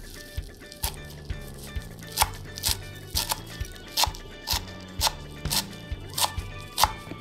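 Chef's knife chopping fresh parsley on a wooden cutting board, with sharp knife strikes about twice a second, over background music.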